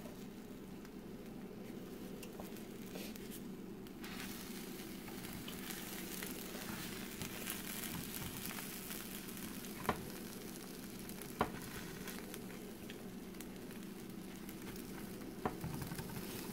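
Corn-tortilla quesadillas with mushrooms and cheese sizzling quietly in a frying pan on low heat, with two sharp clicks about a second and a half apart midway.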